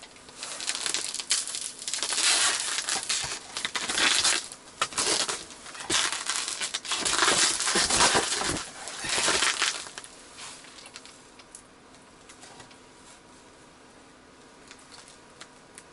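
Plastic ice scoop scraping and crunching frozen slush out of an ice-fishing hole, in a run of irregular bursts that stops about ten seconds in.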